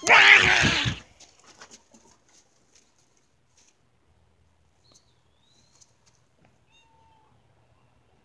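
A cat's single loud, harsh meow lasting about a second, followed by only faint small ticks.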